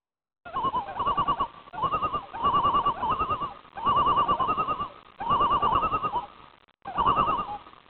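An animal giving a run of wavering, quavering calls, each under a second long, with short gaps between them.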